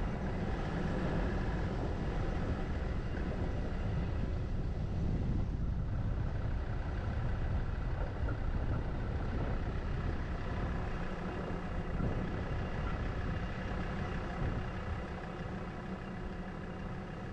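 Vehicle engine running steadily, without a break.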